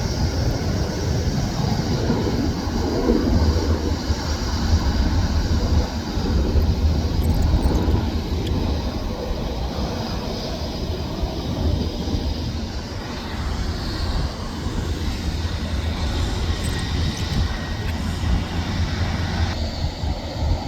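Aircraft engines running at the airfield: a steady, loud rumble with a faint high whine over it.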